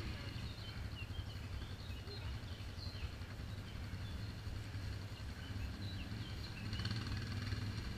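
Engine idling low in the background, with birds chirping now and then in the woods; the idle grows louder near the end.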